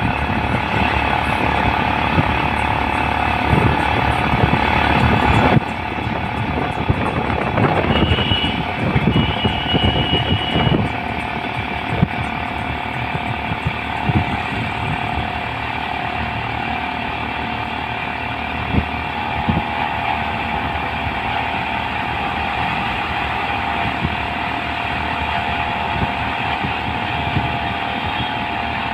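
A moving auto-rickshaw running steadily along a city road, with engine, road and wind noise and a constant whine. The noise drops suddenly about five seconds in, and two short high beeps come a few seconds later.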